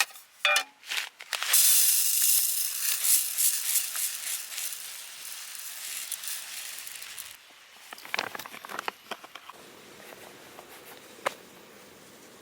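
Food sizzling in hot fat in a pan: a loud, fluctuating hiss that starts about a second and a half in and cuts off suddenly past the middle, followed by a fainter hiss with a few sharp clicks.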